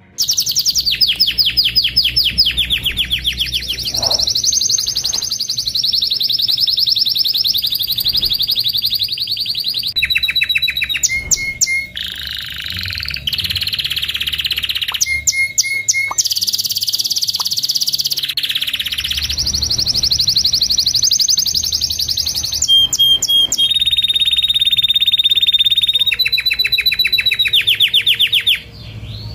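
Domestic canary singing a long, continuous song: a run of rapid trills and rolls, changing to a new phrase every second or two, with some held clear whistles among them.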